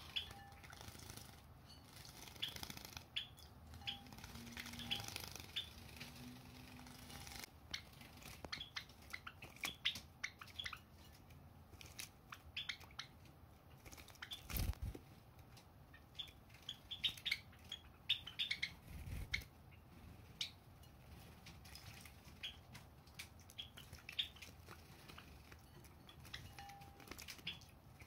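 Java sparrows bathing in shallow water dishes: quick, irregular splashing and wing-fluttering in the water, with short chirps here and there.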